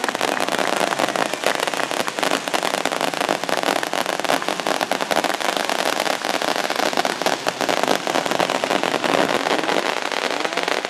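Fireworks going off: a continuous dense crackling and popping from pyrotechnic fountains.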